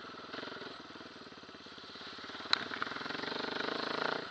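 Dirt bike engine running at low revs on a woodland trail, picking up toward the end, with one sharp knock about halfway through.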